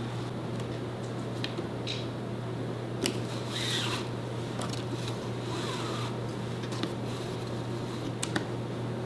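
Light rubbing and scattered small clicks of handwork on a workbench, over a steady low hum.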